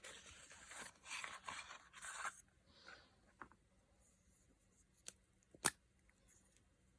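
Faint rustling and scraping as a cosmetic stick and its packaging are handled for about two seconds, then quiet with a single sharp click a little over five seconds in.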